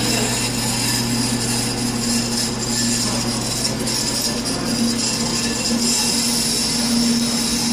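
Brake lathe running and cutting a brake rotor: a steady motor hum under a constant high metallic whine from the cutting bit on the rotor.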